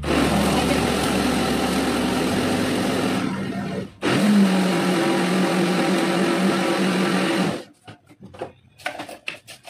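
Countertop electric blender running on a thick load of mango, ice and milk, a mix that makes it struggle. It runs in two bursts with a short break just before halfway, stops suddenly near the end, and is followed by a few light knocks.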